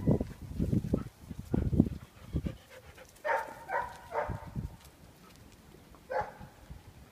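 Dogs tearing and chewing at a raw deer carcass, with low crunching and gnawing over the first couple of seconds. Then three short, high-pitched dog whines in quick succession about three seconds in, and one more near the end.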